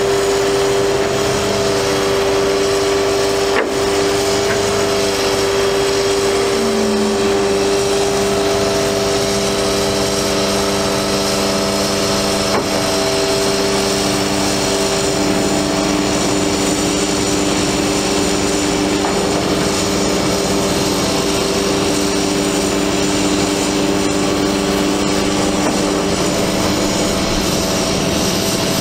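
Palfinger PK32080 articulating truck crane's hydraulic system running under the truck's engine power as the boom is raised and folded up: a loud, steady machine hum with a whine in it. The tone changes slightly a couple of times, and there are two faint clicks.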